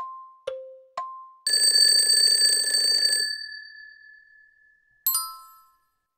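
Quiz countdown timer sound effects: ticks alternating between a higher and a lower tone, about two a second, stop about 1.5 s in. A time-up bell then rings for under two seconds and fades away. About five seconds in, a single bright chime marks the answer reveal.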